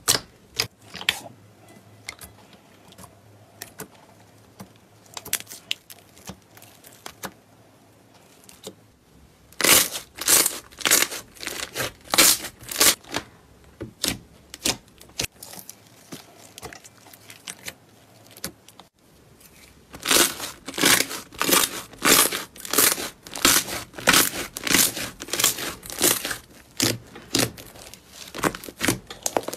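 Hands squeezing, stretching and poking slime, giving sticky clicks and pops. Sparse at first, the clicks come in dense, louder runs about ten seconds in and again from about twenty seconds on.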